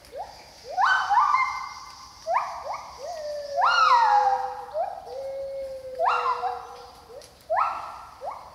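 Two gibbons singing: a string of quick rising whoops, about one a second and overlapping one another, with a longer low held note through the middle.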